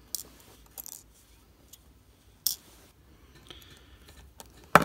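Small metal clicks and taps of tweezers and tiny watch parts being handled on a bench mat: a few light ticks, then one sharp, louder click near the end.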